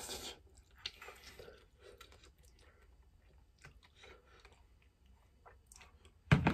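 A person slurping and chewing instant noodles eaten with chopsticks. There is a noisy slurp at the start, then quiet chewing with small clicks, and a sudden loud burst near the end.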